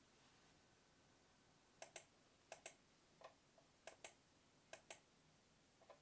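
Faint clicking at a computer over near-silent room tone: about ten short clicks starting about two seconds in, most in quick pairs, like keys or a mouse button pressed and released while searching.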